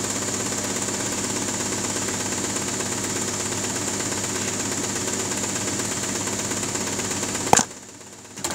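Handheld electric air blower running steadily, blowing over a circuit board to dry it after a thinner wash. It is switched off with a click near the end.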